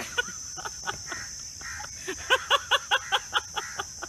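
Crickets chirring steadily, and about two seconds in a person laughing in a rapid run of short repeated notes, about five a second.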